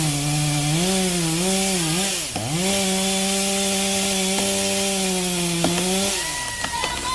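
Two-stroke chainsaw running at high revs while cutting into a tree. The engine note wavers, dips briefly about two seconds in, then holds steady before the revs fall away near the end.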